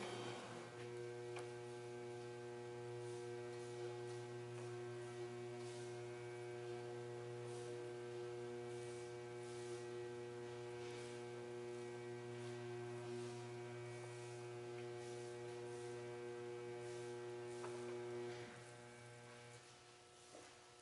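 Lantech Q300 turntable stretch wrapper running: a steady electric motor hum made of several held tones. The hum drops off sharply about 18 seconds in, leaving a quieter hum.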